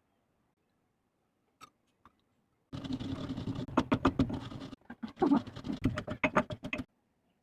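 Scratchy rustling with many sharp taps and clicks, starting about three seconds in, briefly pausing just before halfway, and stopping shortly before the end: close handling noise of things being moved and scraped.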